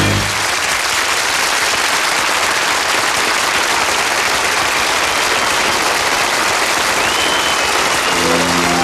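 Audience applauding steadily after a song ends, with a brief whistle about seven seconds in. Music comes in near the end.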